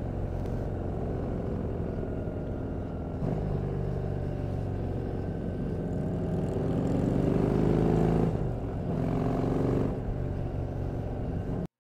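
Motorcycle engine running at road speed, its pitch climbing for a couple of seconds and then falling away about eight seconds in. The sound cuts off abruptly just before the end.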